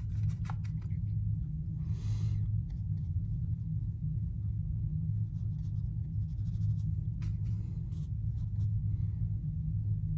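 Faint scratchy brushing and small taps of a water brush, first mixing watercolour paint in a palette well and then stroking it onto paper, over a steady low hum.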